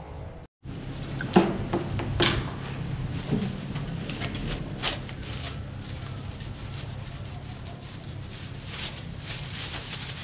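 Thin plastic bag pulled off a roll and opened, crinkling, with scattered sharp clicks, the loudest about a second and a half in, over a low steady hum.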